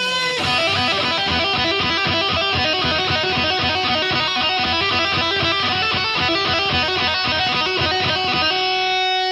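Background music with guitar: a fast run of short repeated notes that gives way to a few held notes near the end.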